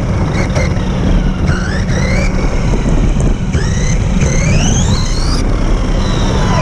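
An electric RC car's motor whining as it drives, the whine rising in pitch several times as the throttle is opened, over tyre rumble on pavement and a steady low hum.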